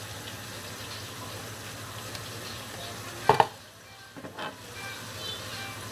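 Fish in oil and yogurt sizzling gently in a frying pan on medium heat, with a sharp knock of a metal spoon about three seconds in and a softer one a second later.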